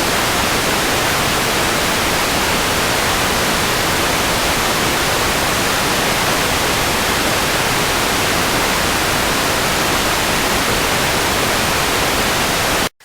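Loud, steady broadcast static, an even hiss across all pitches, that cuts off abruptly near the end.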